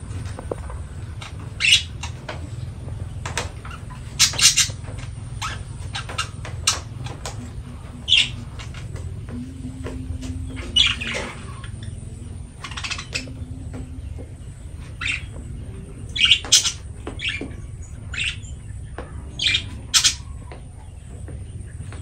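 Fischer's lovebirds giving short, shrill chirps at irregular intervals, some in quick pairs, over a steady low rumble.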